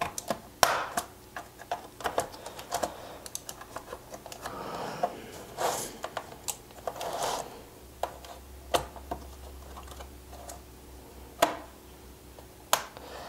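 Plastic case latches of a Razer BlackWidow Tournament keyboard being pried open with a flat pry tool: irregular sharp clicks and snaps as the clips let go, with short scraping of the tool along the case seam in between.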